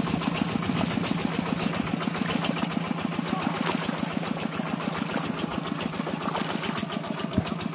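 Small engine running steadily with a fast, even beat: the motor used to drag a seine net through the pond.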